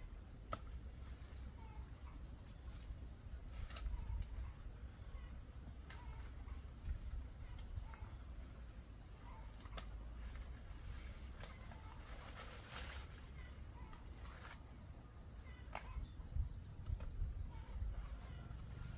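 A steady high-pitched insect drone runs throughout, with scattered soft clicks and rustles over a low rumble.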